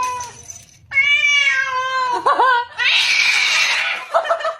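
A cat meowing in long, drawn-out yowls: one trails off just after the start, and a second wavers in pitch as it ends. A loud breathy hiss follows, then a few short mewing calls near the end.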